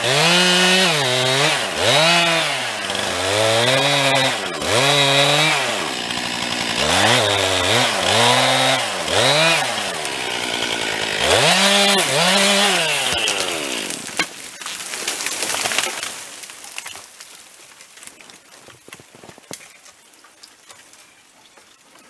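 Stihl chainsaw making the felling cut through an ash trunk, its engine revs rising and falling over and over as the chain bites. About 13 s in the saw stops, and a scattering of cracks and snaps follows, fading away as the tree comes down through the branches.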